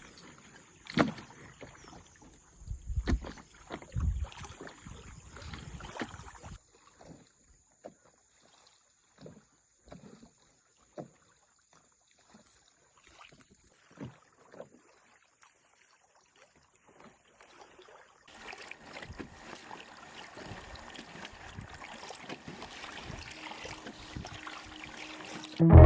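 Canoe on the water: a few sharp knocks in the first few seconds, like a paddle against the hull, then scattered drips and small splashes. A steady hiss comes in over the last several seconds.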